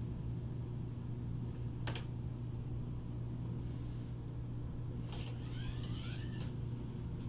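Steady low mechanical hum. A single click comes about two seconds in, and near the end a scraping rustle of about a second and a half carries squeaky rising and falling notes.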